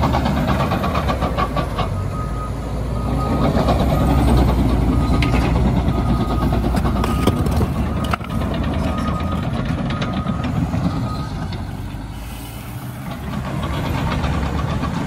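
Cat D6K bulldozer's diesel engine running hard under load as it pushes dirt, with scattered clanks. A repeating reversing-alarm beep sounds from about two seconds in until a few seconds before the end.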